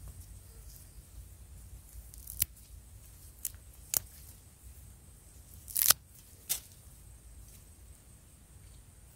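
Gloved hands pulling yam tubers out of loose soil and breaking them off their roots: a few short, sharp snaps, the loudest about six seconds in, over faint handling rustle.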